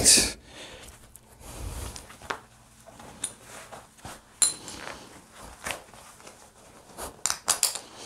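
Metal seat-belt buckle clinking and nylon webbing rustling as a seat-belt belt is threaded through jeans belt loops. Near the end comes a quick run of clicks as the buckle is fastened.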